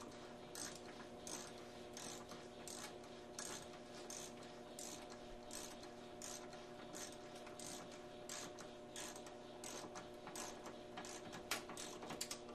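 Hand ratchet tightening radiator mounting bolts: a short run of pawl clicks on each back-swing, repeating evenly about every two-thirds of a second, with a slightly sharper burst near the end.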